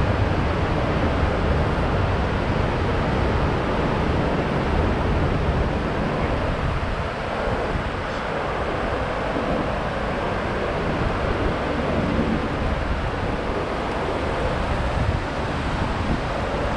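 Steady rushing of the 9/11 Memorial pool's waterfall, water pouring down the pool walls, with wind buffeting the microphone.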